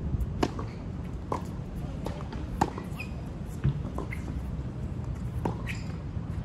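Tennis racket strikes on the ball: a serve about half a second in, then a rally of sharp hits about a second apart, over steady low background noise.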